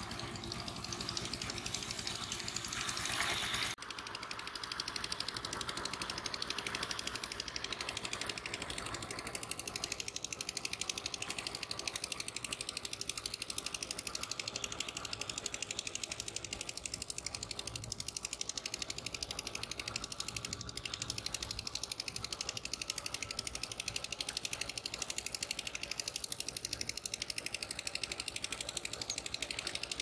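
A small motor's steady, rapid mechanical clatter runs throughout. In the first few seconds there is a brighter rushing, splashing noise that stops suddenly.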